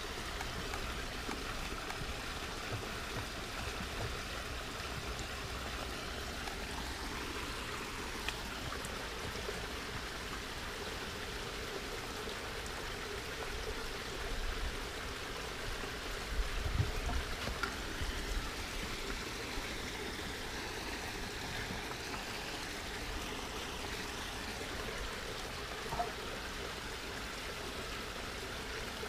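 Steady rush of running water, with a few soft low bumps about two-thirds of the way through.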